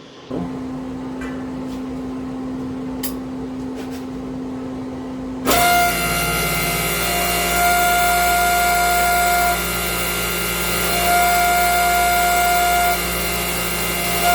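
Hydraulic press power unit running: a steady low motor hum, then about five and a half seconds in the pump comes on louder with a steady whine that cuts out and returns several times as the press is worked.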